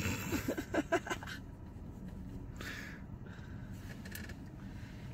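A person's voice briefly in the first second or so, then low, steady background noise.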